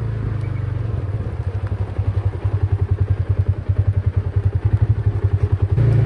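Side-by-side utility vehicle's engine running as it drives slowly, a low steady throb that pulses more strongly from about two seconds in.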